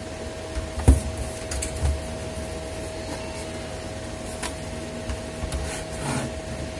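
Plastic laptop case handled and turned over on a desk, with a sharp knock about a second in and a softer one a second later, over the steady hum of an electric fan.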